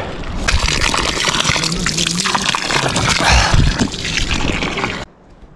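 Water gushing and splashing out of the end of a black plastic pipe close to the microphone as a man drinks from it. The sound cuts off suddenly near the end.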